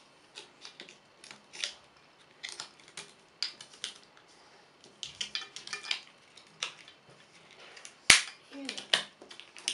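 Scissors snipping through a thin plastic soda bottle to free the jelly inside, a string of irregular crisp snips and plastic crackles, with one loud sharp snap about eight seconds in.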